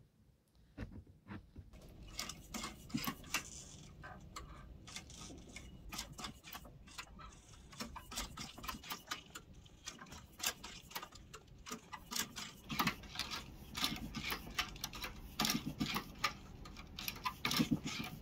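Cylinder-arm leather sewing machine stitching through a leather zipper tab: a dense, uneven run of sharp ticks and clicks that starts about two seconds in.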